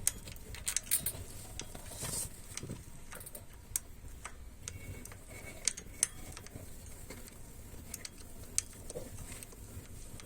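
Scattered small metal clicks and ticks, irregular and sharp, of a hydraulic disc brake caliper and its mounting bolts being handled and fitted back over the bicycle's rotor.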